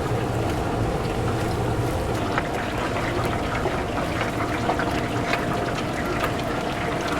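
Chicken pieces deep-frying in hot oil, a steady sizzle full of small irregular crackles over a steady low hum.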